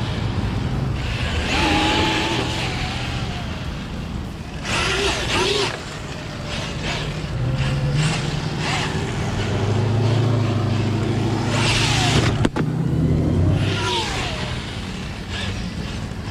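A 1/10-scale Redcat Gen8 Scout II RC truck with a Fuze 5800kV brushless motor whines up and down in pitch as it accelerates and slows in bursts. Its tyres spray and crunch over loose gravel and shell. A single sharp knock comes about three-quarters of the way through.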